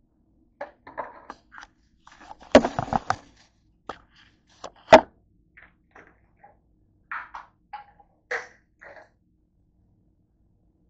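Kitchen handling noises: a scatter of knocks and clatters as things are moved about on a countertop. The loudest is a quick cluster of clatters about two and a half seconds in, then a single sharp knock near five seconds, with lighter knocks later.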